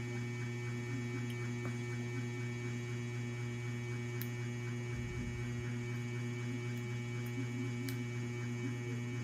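Steady low electrical hum throughout, with a few faint sharp ticks as fingers flick a plastic tuberculin syringe to clear air bubbles before an intradermal injection. A short low thud comes about five seconds in.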